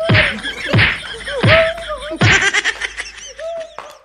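Four hard blows land on a person in an even rhythm, about 0.75 s apart, and stop a little over two seconds in. A high, wavering voice cries out over and between them.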